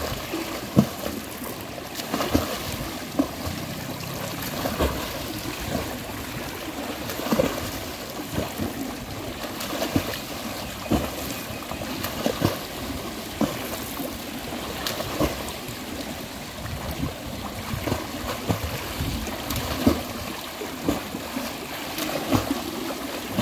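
A swimmer's butterfly stroke splashing in a pool: the arms and kicks slap the water about every second or so, over a steady wash of noise.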